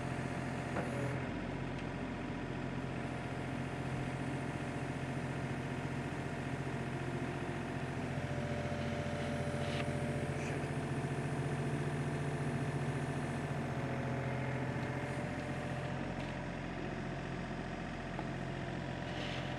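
Case CX36B mini excavator's 28 hp Yanmar diesel engine running steadily, a little louder partway through.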